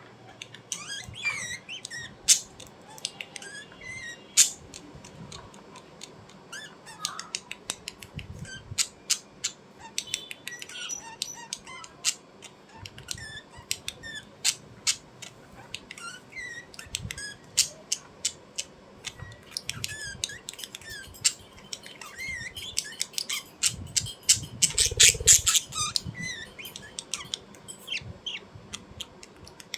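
A bird calling in rapid short squawks and chirps, mixed with many sharp clicks, with a denser, louder flurry near the end.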